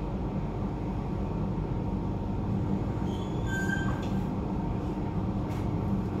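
Alstom Metropolis C830C metro train heard from inside the car while running: a steady low rumble of wheels and running gear under a steady hum, with a short high wheel squeal about three and a half seconds in.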